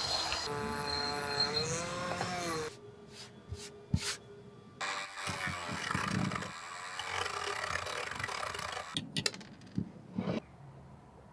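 Handheld rotary tool running, first with a wire brush against a steel vise jaw, its whine bending up and down in pitch as it loads. After a short pause with a few clicks it runs again with a sanding drum on a steel rod. It stops about nine seconds in, and several sharp hammer taps follow.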